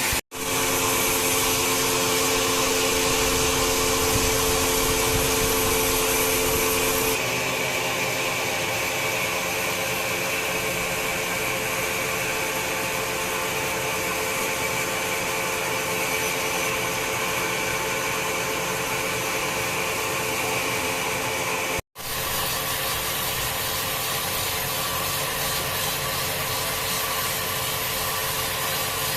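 Wood-cutting machine running steadily while cutting wood: a dense, continuous whine with a steady hum beneath it. The hum drops away about a quarter of the way in, and the sound cuts out for an instant twice.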